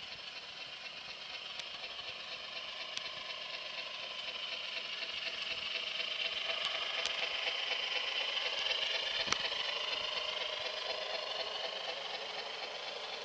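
O-gauge model steam locomotive and freight train running on garden track: the running gear and wheels whir and rattle on the rails, growing louder as the train passes close and fading as it curves away, with one sharp click about nine seconds in.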